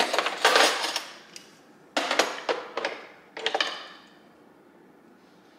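Black silverware clinking and clattering as handfuls of it are set into a kitchen drawer organizer, in three short bursts.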